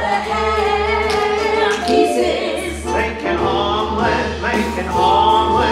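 Musical theatre number: singing voices holding long notes over instrumental accompaniment.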